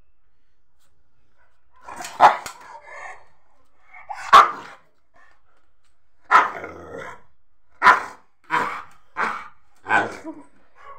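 Young Rottweiler barking: about seven barks starting a couple of seconds in, spaced one to two seconds apart and coming closer together near the end.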